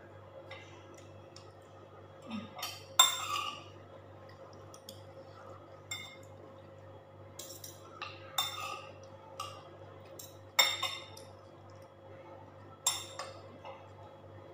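Mussel shells and metal cutlery clinking against ceramic plates and bowls during a meal: several sharp clinks, the loudest about three seconds in, with lighter taps between.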